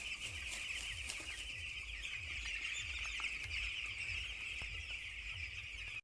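A large flock of broiler chicks peeping and chirping continuously in a poultry shed, with a low throb repeating about twice a second underneath.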